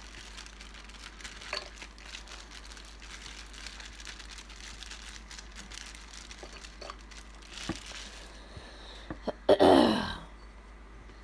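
Faint rustling and small plops as baby carrots are tipped from a plastic bag into a pot of water. About nine and a half seconds in, a woman clears her throat loudly and briefly; she has a cough.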